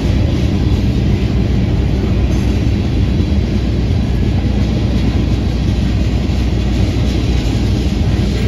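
Freight train of tank cars rolling past close by, steel wheels on rail making a steady, loud rolling noise.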